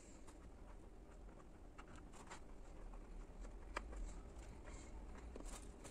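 Faint handling noise of plastic motorcycle body parts being fitted by hand: scattered light clicks and taps, one sharper click a little before the middle.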